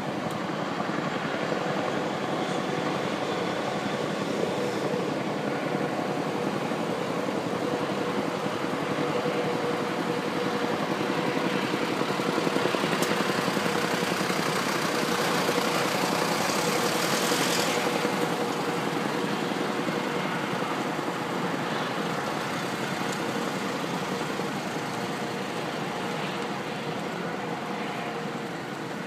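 A Chinook (B-234) tandem-rotor heavy helicopter flying past at a distance: a steady rotor and turbine drone with a faint steady whine. It grows a little louder about halfway through and eases off near the end.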